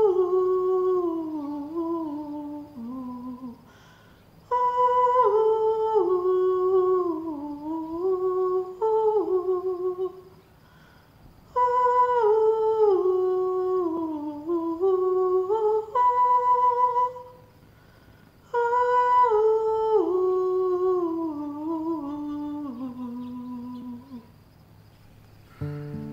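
A woman's solo voice sings a wordless melody on an 'oo' in four long phrases, each falling in pitch, with short breaths between.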